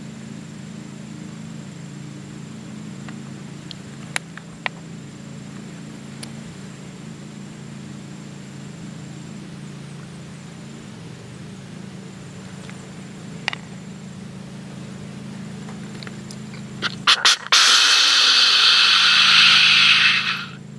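Whitetail buck's snort-wheeze: three quick, sharp snorts near the end, then a loud hissing wheeze of air forced through the nose, lasting about three seconds. It is a rut aggression and dominance call.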